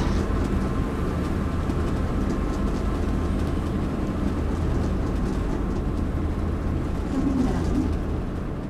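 Steady low rumble and rushing noise of a car ferry under way at sea, heard from its deck.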